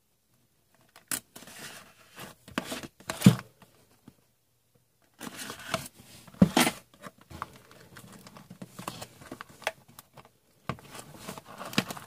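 Trading card box packaging being torn open and crinkled, in irregular bursts with short pauses.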